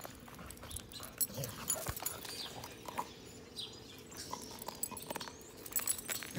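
A dog mouthing and nosing a plastic Easter egg, with scattered light clicks and taps.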